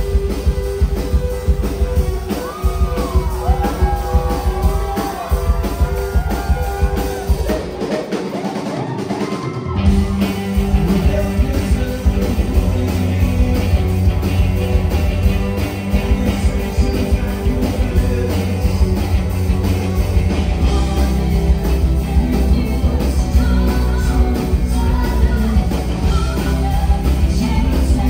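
Live rock band playing at full volume: several electric guitars, bass and drum kit, with singing. The bass and drums drop away for a couple of seconds about a third of the way in, then the full band comes back in.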